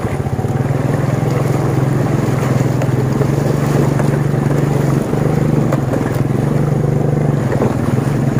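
Small motorcycle engine running steadily under way, with a brief dip in engine note about five seconds in.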